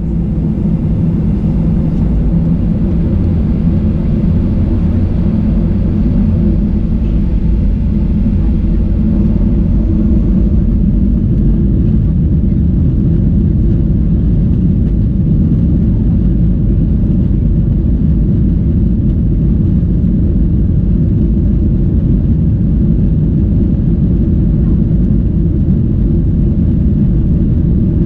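Boeing 737-800's CFM56-7B jet engines running: a loud, steady low rumble.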